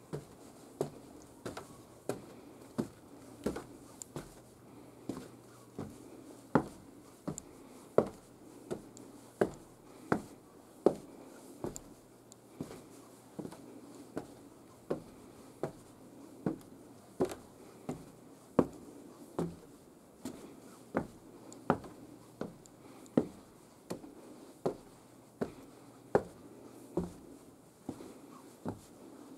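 Footsteps climbing the wooden stairs of a log observation tower, a steady pace of about three steps every two seconds, each step a short knock on the wooden treads.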